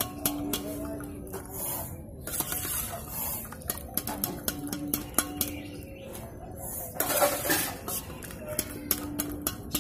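Steel slotted ladle clinking and scraping against a steel pot and bowl, many light clicks, as boiled chana dal is scooped out of its cooking water and strained into a bowl.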